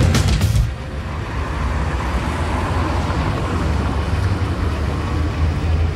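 City road traffic: motorbike and car engines running with a steady low rumble.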